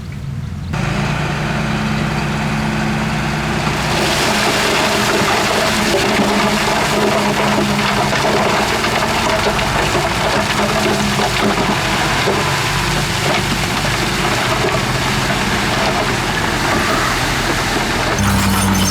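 Heavy diesel earthmoving machinery running steadily. About four seconds in, a loud, dense rushing noise joins the engine and carries on.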